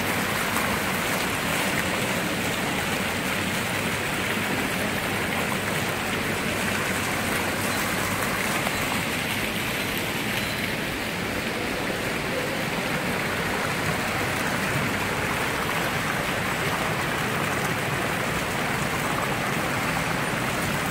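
Ornamental fountain's water jets splashing steadily into the basin.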